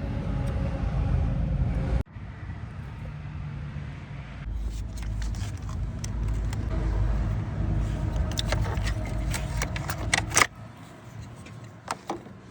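Alpina B3 3.3's straight-six engine running steadily, with an edit cut about two seconds in. In the later part, light metallic clicks and jingles sound over it.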